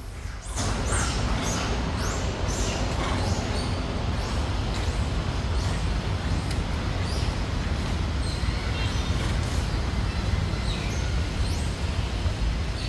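Birds chirping in quick, high, falling notes over a steady rushing noise with a strong low rumble, which comes up about half a second in.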